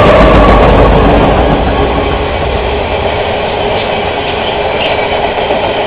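Freight train passing close by: an Iowa, Chicago & Eastern diesel locomotive runs past with a loud low engine rumble in the first second or so. It is followed by the steady rolling noise of loaded open-top freight cars on the rails.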